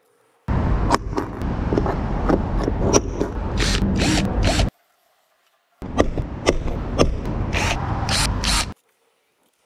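Electric drill boring into the caravan's shell in two runs of about four and three seconds, each starting and stopping abruptly, with a rattle of clicks through the drilling.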